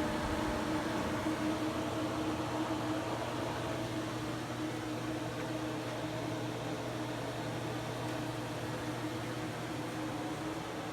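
Steady mechanical hum: a few constant low tones over an even hiss, easing slightly in level over the stretch.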